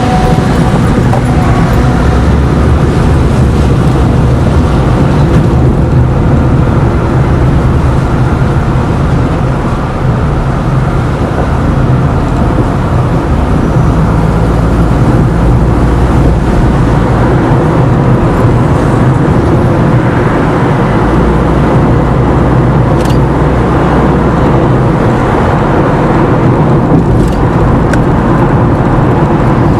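Steady engine and tyre noise heard inside a car driving on a highway, with a heavy low rumble throughout.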